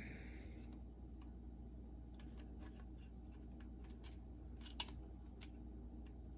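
Scattered light clicks and taps of small plastic parts being handled while a drive belt is fitted on a cassette Walkman, with one sharper click about five seconds in.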